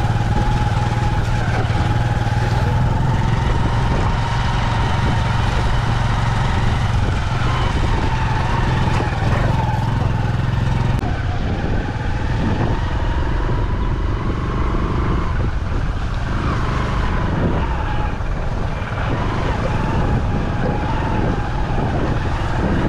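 Motor vehicle running on the move, a steady noisy drone with a wavering engine whine. About halfway through the sound changes abruptly and the deep hum drops away.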